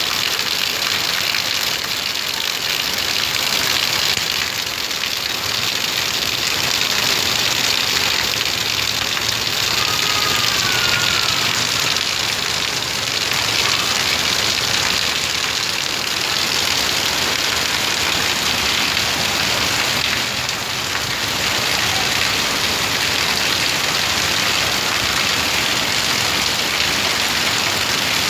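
Heavy tropical rain pouring steadily, an even loud hiss.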